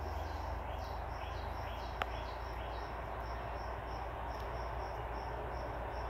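Crickets chirping steadily, about three short high chirps a second, over a low steady hum, with a single sharp click about two seconds in.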